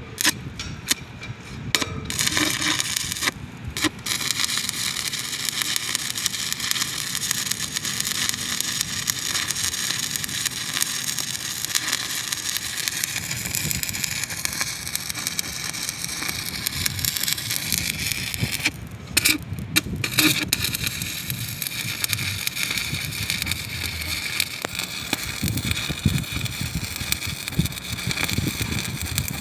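Stick (SMAW) arc welding on a pipe joint: the electrode arc crackles and hisses steadily. The arc breaks off briefly a few seconds in and again about two-thirds of the way through, then strikes again.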